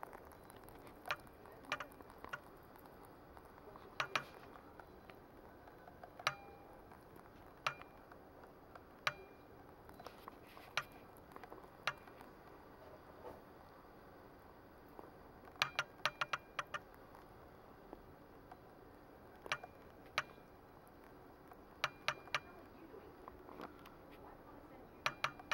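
Pet rabbit eating and gnawing: irregular sharp clicks and crunches a second or two apart, with a quick flurry of them about two-thirds through.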